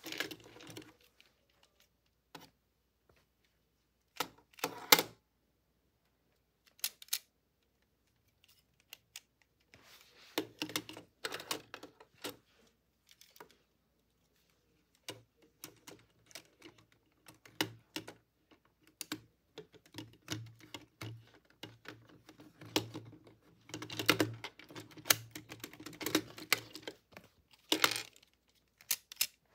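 Plastic Lego bricks clicking and rattling as a brick-built toy gun model is handled and picked up, in scattered clusters of small clicks that come thickest in the last third.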